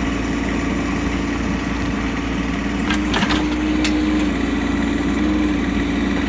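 Bobcat 418 mini excavator's Kubota diesel engine running steadily, with a short knock about three seconds in.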